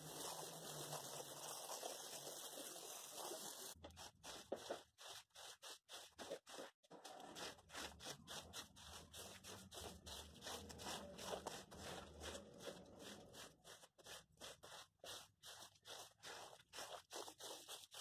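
Stiff-bristled broom scrubbing a wet, soapy shag rug, faint repeated scraping strokes about two to three a second. A steady hiss fills the first few seconds before the strokes begin.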